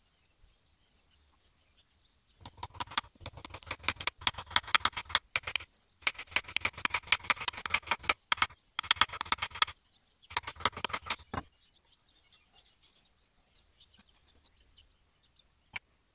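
Small hammer tapping lightly and quickly on the metal vial cover plate set in a wooden level, in four quick runs of taps with short pauses between them.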